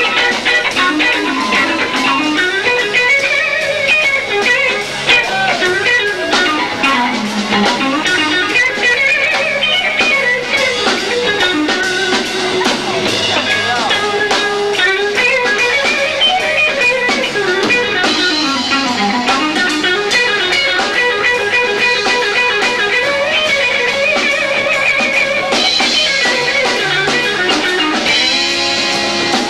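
Live rock band playing loud, with an electric guitar whose lines slide up and down in pitch over and over. It is captured lo-fi through a 1990s camcorder's built-in microphone.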